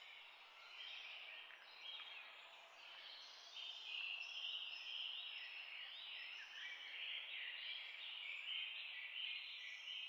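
Herbal decoction boiling in a stainless steel pot: a faint, uneven hiss of simmering liquid that grows louder about three and a half seconds in.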